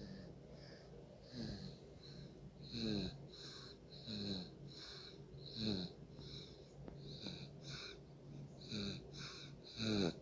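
Soft, wheezy snoring: short breaths come about every second and a half, each with a brief whistle that falls in pitch, the loudest near the end.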